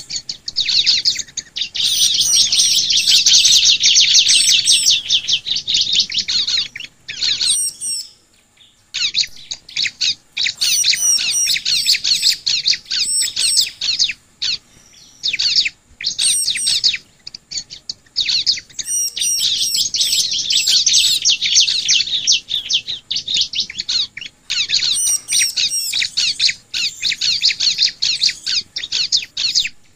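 Bar-winged prinia (ciblek) singing: long runs of fast, high-pitched chattering chirps, broken by short pauses about eight seconds in and again about halfway.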